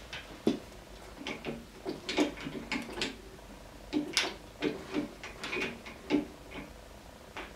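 Irregular metal clicks, clinks and short rattles from hands working the end gear train and drive pulley of a Standard Modern 10-inch gear-head lathe, a dozen or so in a row.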